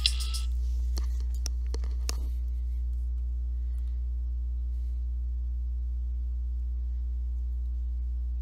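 A steady low electrical hum, with a few faint clicks in the first couple of seconds.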